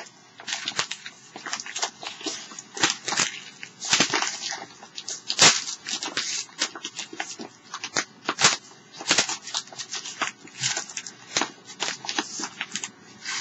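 Yellow padded mailer envelope being picked at and pulled by hand: irregular crinkling, rustling and tearing paper with sharp crackles, the loudest crack about five and a half seconds in. The envelope is not giving way to bare hands.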